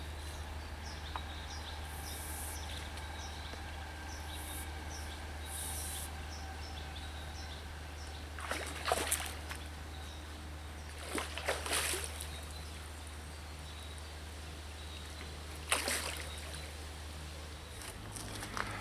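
Lakeside outdoor ambience over a steady low rumble, with three brief splashy water sounds: one about halfway through, one a few seconds later, and one near the end.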